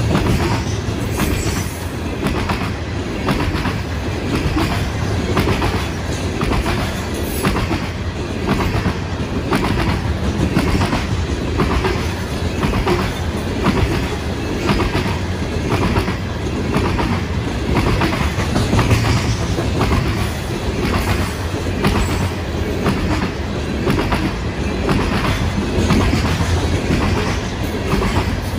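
Freight train of steel coal gondola cars rolling past at trackside, with a steady rumble and the even, repeating clickety-clack of wheels passing over the rail.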